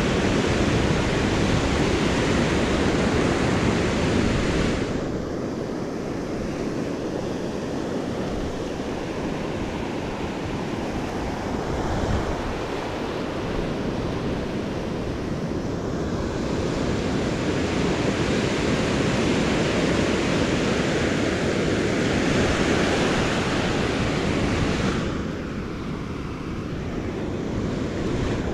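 Beach surf washing up and draining back over sand, a continuous rushing that swells and fades twice in long surges. Wind buffets the microphone.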